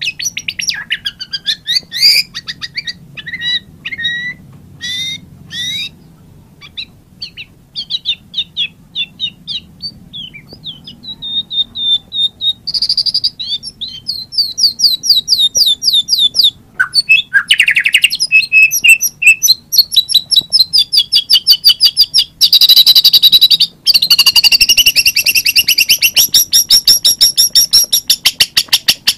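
White-rumped shama (murai batu) singing: varied whistled and chattering phrases with short pauses at first, then from about halfway long, loud runs of rapid repeated notes that become nearly continuous near the end.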